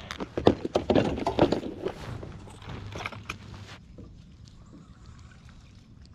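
Knocks, clicks and rattles of fishing tackle being handled in a jon boat, as a chatterbait is picked out and tied on. They are densest in the first two seconds and die away about four seconds in.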